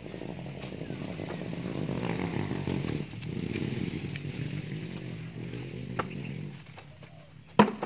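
A small engine running with a wavering pitch, dipping briefly about three seconds in and dying away about a second before a single sharp knock near the end.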